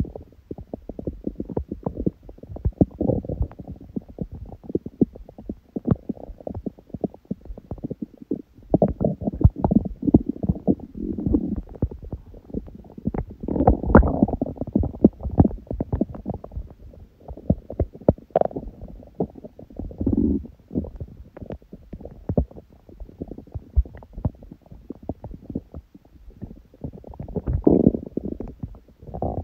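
Empty stomach growling from hunger, recorded close up: low rumbling under a continuous run of small rattling, popping gurgles, swelling into louder rumbles every few seconds.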